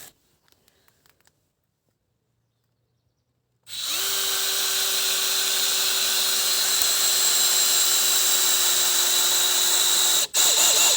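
Near quiet for the first few seconds, then an electric drill starts with a short rising whine and runs steadily at one pitch for about six seconds. It stops briefly near the end and starts running again.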